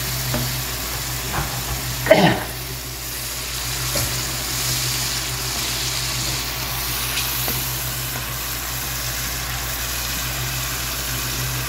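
Chopped tomatoes sizzling in hot oil in a pan, stirred with a wooden spatula; a steady frying hiss with one brief louder sound about two seconds in.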